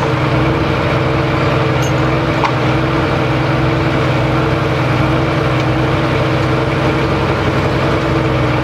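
Pro Stock Diesel Dodge Ram pickup's Cummins straight-six diesel idling steadily with an even, unchanging note.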